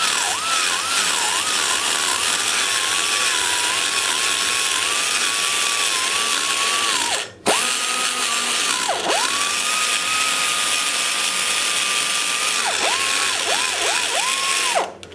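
Die grinder spinning a carbide burr as it shapes the exhaust valve-guide boss inside the port of an aluminum small-block Chevy cylinder head. A steady high whine dips in pitch again and again as the burr is pressed into the metal. It cuts off briefly about halfway, then starts again, and stops just before the end.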